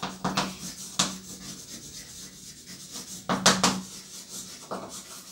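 Chalk writing on a blackboard: scratchy strokes and taps come in short runs with pauses between them, the loudest group a little after three seconds in.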